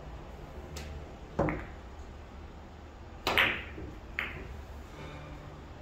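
Carom billiard shot: a cue tip strikes the cue ball and the balls knock together in sharp clicks, each with a short ringing tail. There are four clicks in all: a faint one just under a second in, a loud one about a second and a half in, the loudest about three seconds in, and one more a second after that.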